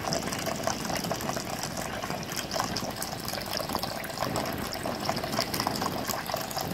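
Thin stream of tap water running steadily into a bathroom sink and splashing on the drain, with a constant patter of small splashes.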